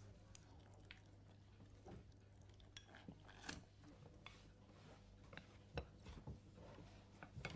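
Faint, scattered clicks of chopsticks against porcelain plates and bowls as food is picked up and eaten, over a low steady hum.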